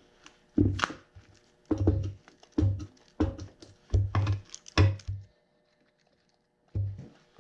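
Irregular heavy knocks and clunks of metal on metal as the cast-iron belt pulley drive assembly of a 1942 Farmall H is worked loose from the transmission housing: a run of about seven knocks, a short pause, then one more near the end.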